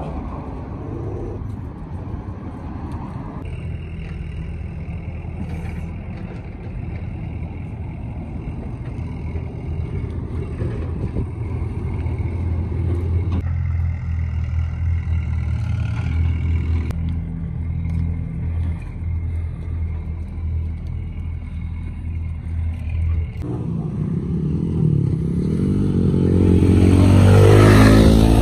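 A motor vehicle's engine running steadily at low speed, then a motorcycle passing close by near the end: its engine grows loud and drops in pitch as it goes past.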